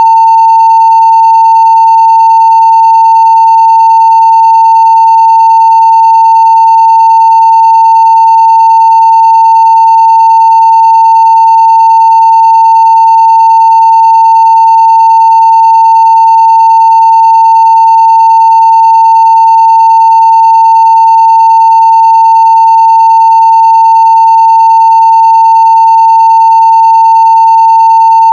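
A steady, unbroken 900 Hz sine test tone played at full level (0 dB), with faint higher overtones above it.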